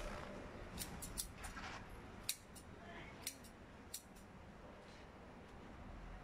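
Scissors snipping the tender shoots and leaves off chili plants: a run of short, sharp snips, about nine of them, over the first four seconds or so.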